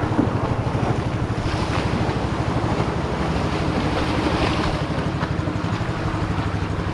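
Boat engine running steadily with a fast, even pulsing note, over waves washing on the rocks and wind on the microphone.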